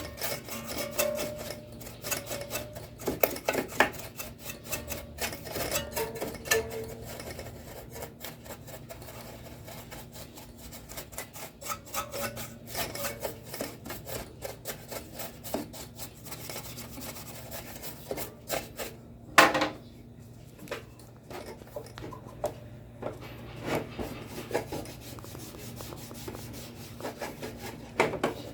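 Irregular rubbing and scrubbing strokes on the casing of a Sony CFS-1058S radio cassette recorder as it is cleaned, with a sharper knock about two-thirds of the way in and a faint steady low hum underneath.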